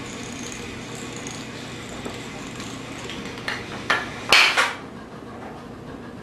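Homemade dominoes toppling in a chain, a steady light clatter of small blocks knocking over. About three and a half to four and a half seconds in come a few louder clacks as a row of larger blocks falls, the last the loudest.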